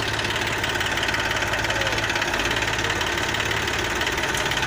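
Diesel engines of two tractors, a Mahindra 275 DI close by and an Eicher 380, running steadily with an even, rapid chug.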